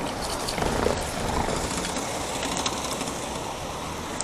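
Bicycle rolling along a road while the rider pushes it with one foot like a scooter, a steady rumble of road and wind noise with a few faint clicks.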